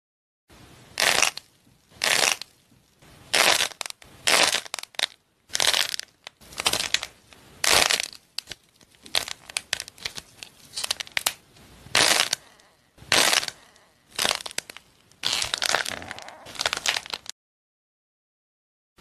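Dry clay crushed and crumbled between the fingers, giving a series of crisp crunches about once a second. The crunches stop a couple of seconds before the end.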